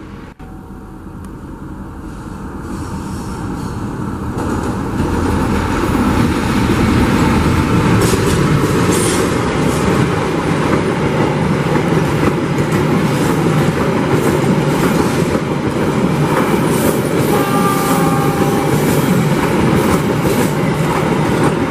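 Passenger train passing close by on the rails: its noise builds over about five seconds, then the coaches roll past in a steady loud rush of wheel noise with rattling clicks from the wheels on the track.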